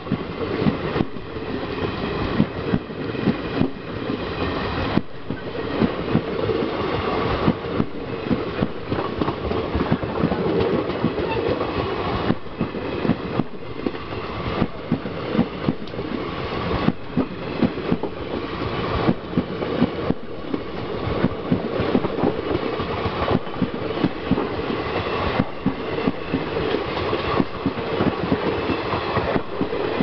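Indian Railways passenger coaches of an express train running past close by, their wheels clacking over the rail joints again and again over a continuous rolling rumble.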